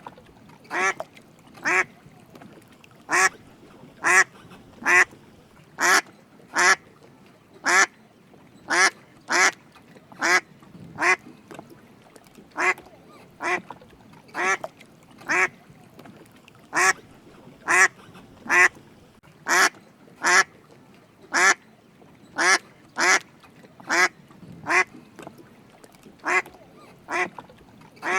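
Drake mallard quacking: short calls repeated about once a second at an uneven pace, some in quick pairs.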